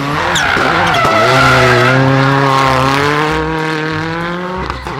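Race car engine sound effect: one engine note held at high revs, dipping and recovering in pitch about half a second in, then running nearly steady.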